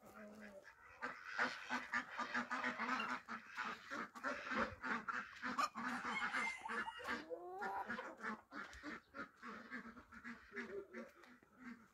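Domestic geese and ducks honking and quacking together in quick, overlapping calls, loudest in the first two-thirds and thinning toward the end, with one call rising in pitch about seven seconds in.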